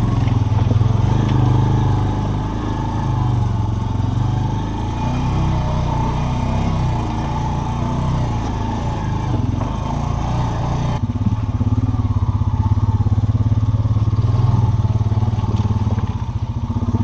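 Off-road bike engine running under load on a rough trail, its pitch rising and falling with the throttle.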